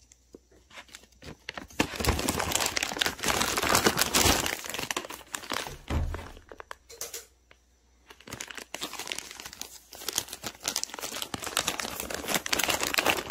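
Clear plastic bag of beef liver jerky crinkling as it is handled, in two long spells with a quieter pause in the middle.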